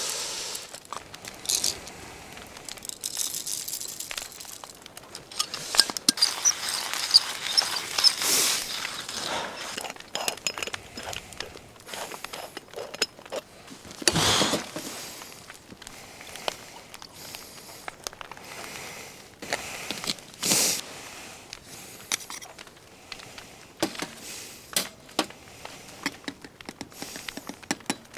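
Scattered light clinks, clicks and rustles of small camping gear and utensils being handled, with a louder swish about fourteen seconds in and another about twenty seconds in.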